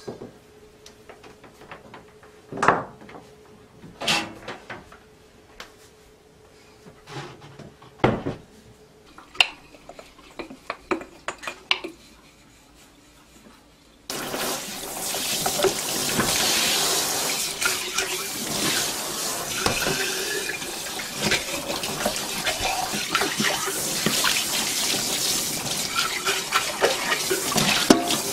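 A few scattered clicks and knocks of kitchen items being handled, then about halfway through tap water suddenly starts running into a stainless steel sink while a glass jar is scrubbed with a brush and rinsed under the stream.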